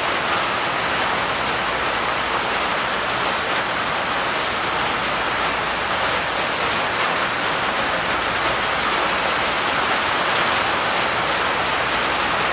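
Steady, even rushing noise of air, as from a shop fan running, with no knocks or tones standing out.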